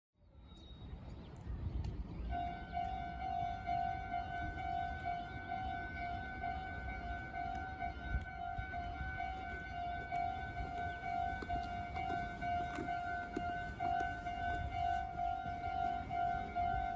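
Japanese level-crossing electronic warning bell starting about two seconds in and ringing steadily, warning of an approaching train. A low rumble of background noise runs underneath.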